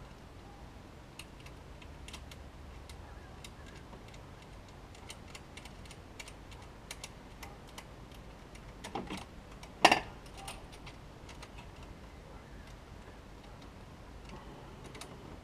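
Scattered light clicks and ticks of hand tools and metal fittings being worked in a car's engine bay, with one sharp, louder click about ten seconds in.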